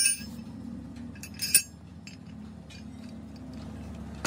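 Metal-on-metal clinks and short ringing knocks as steel truck clutch parts and hand tools are handled and set down. There is a sharp clink at the start, the loudest cluster comes about one and a half seconds in, and a last light clink falls near the end, over a steady low hum.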